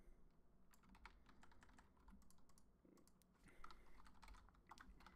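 Typing on a computer keyboard: faint, quick runs of keystroke clicks that start about a second in.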